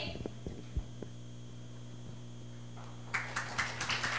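Steady room hum with a few soft thumps, then from about three seconds in a quick run of footsteps as several people in hard-soled shoes walk across the floor, about five clicks a second.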